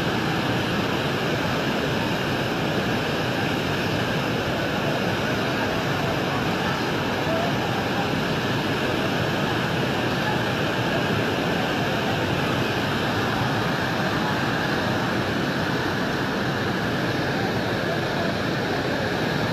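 Flash-flooding river: a torrent of muddy floodwater rushing in a steady, unbroken noise.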